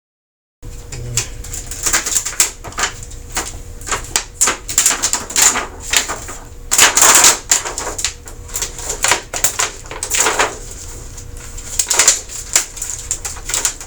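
Irregular plastic clicking and rattling from the TV backlight panel's plastic holders or risers as they are twisted and pulled out, with a faint steady high whine beneath.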